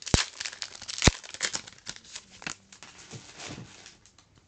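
Foil booster pack wrapper crinkling and tearing as trading cards are handled, with two sharp knocks about a second apart near the start; the rustling thins out toward the end.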